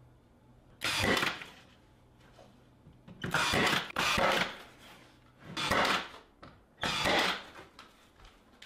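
Cordless battery-powered nailer firing five times, driving nails through a plywood bracket into the plywood stand. The first shot is about a second in, two follow close together a little past three seconds, and two more come near six and seven seconds.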